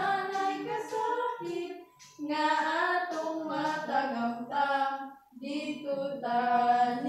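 Two girls singing a Cebuano hymn together, in long held phrases with short breaks for breath about two seconds in and again about five seconds in.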